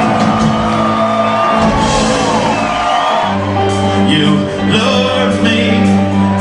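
Rock band playing live, with vocals sung over it. A held chord gives way about three seconds in to a new chord with a strong bass line.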